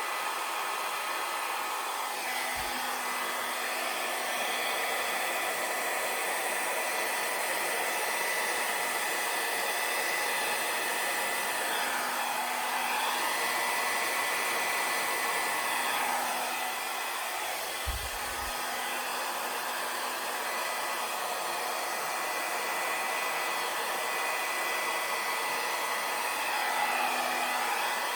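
Handheld hair dryer running steadily, blowing wet acrylic paint across a canvas. Its airflow noise carries a steady high whine and wavers in pitch now and then. Two brief low knocks come about 3 seconds in and about 18 seconds in.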